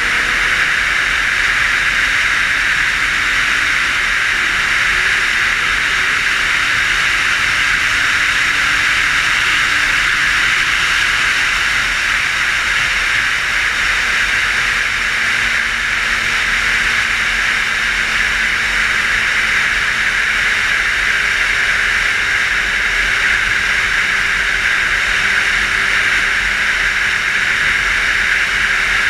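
Steady rushing wind noise over a helmet-mounted camera on a 600 cc motorcycle cruising at road speed. The engine is a faint hum underneath, drifting slowly in pitch.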